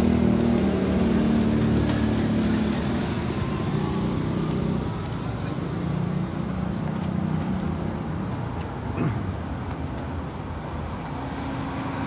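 A car driving past close by, its engine hum fading away over the first few seconds, then steady street traffic noise, with another vehicle's hum rising again near the end.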